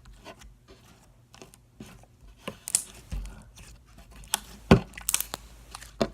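Slime being squeezed and stretched by hand, making irregular sticky pops and clicks, with one louder pop near the end.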